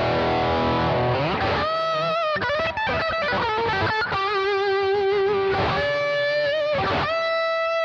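Clifton Thinline electric guitar with Wilkinson P90 pickups, played as a single-note lead line. Quick runs come in the first half, then long held notes with vibrato.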